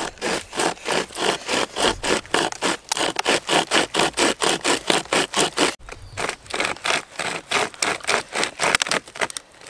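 Bushstar hand chainsaw, a carbon-steel pocket chain pulled back and forth by its hand loops, rasping through a wooden branch in quick even strokes, about four a second. A brief break comes about six seconds in before the strokes pick up again.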